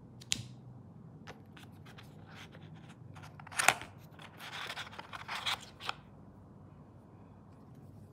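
Watch packaging being handled by hand: scattered light clicks, one sharp snap about three and a half seconds in, then a couple of seconds of rustling and crinkling.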